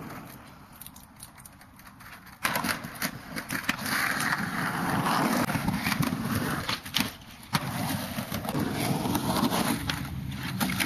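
Skateboard wheels rolling over concrete, with sharp clacks of the board striking the ground. The rolling starts suddenly about two and a half seconds in, and two loud clacks come close together past the middle.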